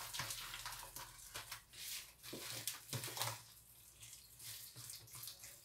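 A fork stirring a thick, wet zucchini fritter batter in a plastic bowl: faint, irregular wet squelching and scraping strokes.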